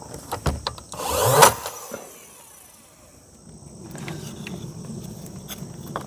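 Wooden shims being worked into the gap between the door frame and the wall framing: several light knocks, then a louder scrape about a second and a half in. A low steady hum comes in from about four seconds.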